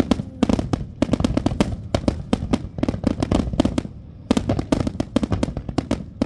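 Aerial fireworks bursting in a dense barrage: many sharp bangs and crackles a second, overlapping. The barrage eases briefly about four seconds in, then picks up again.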